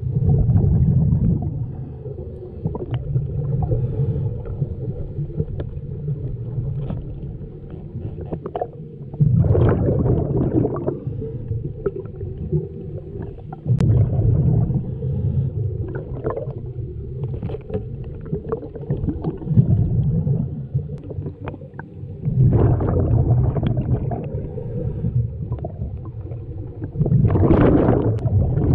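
Scuba regulator exhalations heard underwater: a burst of bubbling gurgle about every four to five seconds over a steady low underwater rumble.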